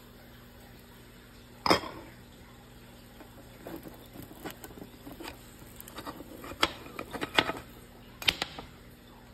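Cookware handling at a frying pan: a sharp clank about two seconds in as the glass pan lid comes off, then a plastic spatula scraping and tapping against the pan under a pancake, and a knock near the end as the pancake is flipped.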